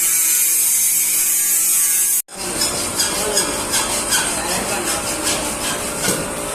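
Angle grinder running with a steady high whine that cuts off abruptly a little over two seconds in, followed by irregular clicks and knocks of handling.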